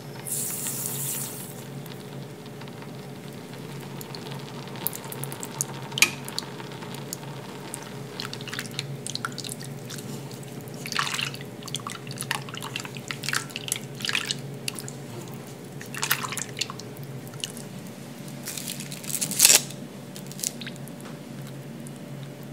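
A silicone spatula stirs milk in an enamel saucepan, making light, irregular scrapes and clicks against the pan with small liquid sounds. A steady low hum runs underneath.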